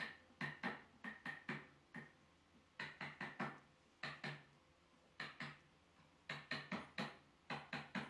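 A plastic wood-glue bottle being squeezed and dabbed onto pine boards: short clicks in quick groups of two to four, about once a second.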